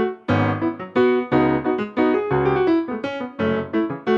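Piano played with a harder, busier rhythm: chords over a bass line with many quick note attacks.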